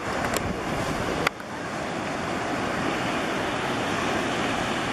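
Ocean surf breaking, with wind on the microphone: a steady rush of noise. Two sharp clicks in the first second and a half.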